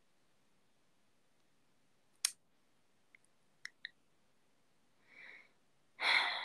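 Quiet room tone with a few small clicks: one sharp click about two seconds in and three fainter ones a second or so later. Then come a soft breath and, near the end, a louder breath drawn just before speaking.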